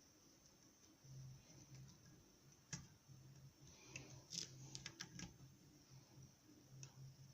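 Faint, scattered clicks of a lock pick and tension wrench working the pins inside a challenge lock: one click about three seconds in, a quick run of four or five clicks around four to five seconds, and one more near the end.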